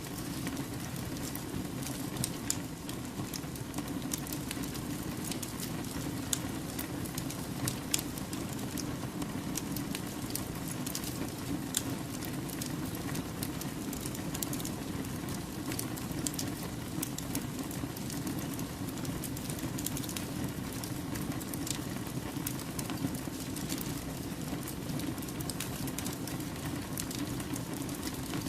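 Wood campfire burning steadily, its logs crackling and popping in frequent sharp snaps over a low, even rush of flame.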